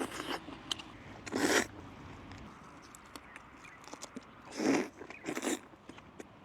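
Close-up sounds of a person eating: wet chewing and lip-smacking with small clicks, and three short, louder bursts, about a second and a half in and twice near five seconds.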